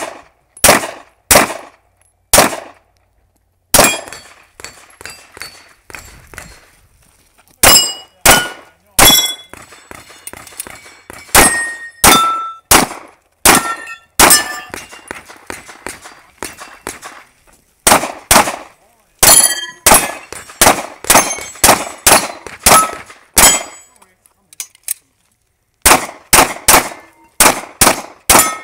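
Glock 19 9mm pistol firing quick strings of shots at steel targets, the hits ringing out as metallic clangs. The strings break off twice, briefly, near the start and near the end.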